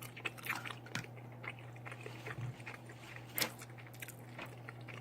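Close-up chewing and mouth sounds of someone eating barbecue leftovers: wet smacks and small clicks at an uneven pace, with a louder smack about three and a half seconds in, over a steady low hum.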